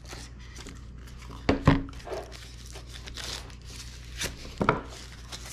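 Small cardboard product boxes being handled and opened: light rustling and scraping of card and packing, with a few sharp knocks about a second and a half in and again near the end.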